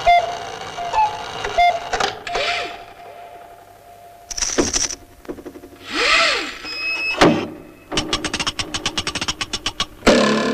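Cartoon sound effects: a thin held tone, several short swishes and a sliding pitch, then, about eight seconds in, a rapid clattering run of clicks at roughly ten a second.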